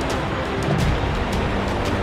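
Background music laid over a steady rush of heavy seas breaking over a ship's deck in a storm.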